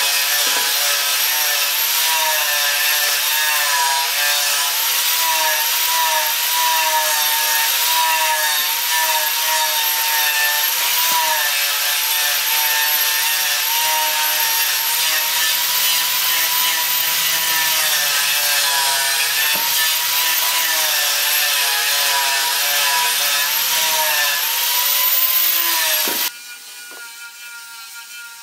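A power tool motor running steadily, its whine wavering slightly in pitch; it cuts off suddenly near the end.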